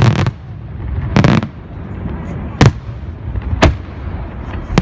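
Fireworks exploding in a display: loud sharp bangs about a second apart, with a longer crackling burst just over a second in and single bangs near three and four seconds in and again at the end.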